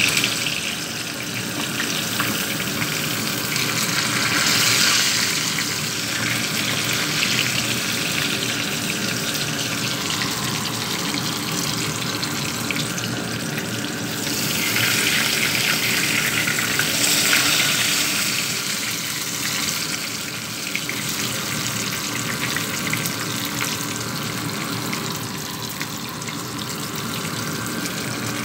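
Whole tilapia frying in hot oil in a pan, a steady sizzle that swells twice and eases again.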